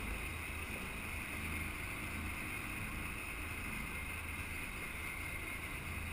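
Sportfishing boat's engine running steadily, a low hum under an even hiss of wind and sea.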